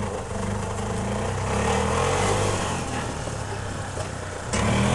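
Golf cart driving under throttle with its engine running. About four and a half seconds in the sound jumps louder as the cart speeds into a hard turn.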